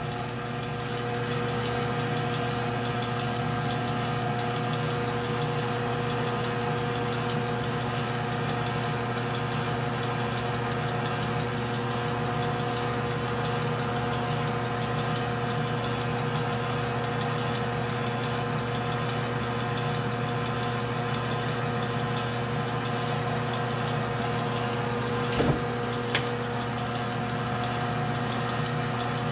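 Metal lathe running steadily with its spindle in reverse, its motor and gearing humming, as a hand-held threading die backs off the freshly cut thread on a tool steel rod. Two brief clicks come about 25 seconds in.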